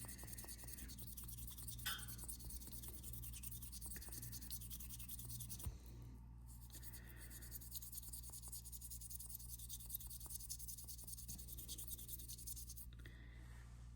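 Faint rubbing and scratching as a watch part is scrubbed by hand, with small scattered clicks of handling over a steady low hum.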